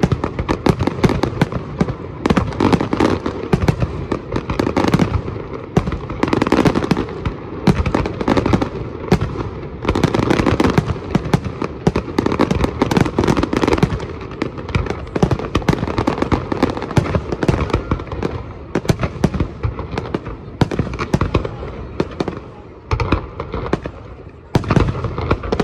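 Fireworks display in full barrage: aerial shells bursting in rapid succession, several bangs a second, over a continuous crackle. It eases slightly a few seconds before the end, then a few loud bursts come again.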